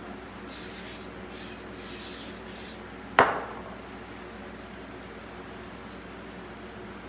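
Aerosol CA glue activator sprayed in about four short hisses over two seconds, misting the blue tape for a tape-and-superglue hold on the CNC bed. About three seconds in there is a single sharp knock, the loudest sound.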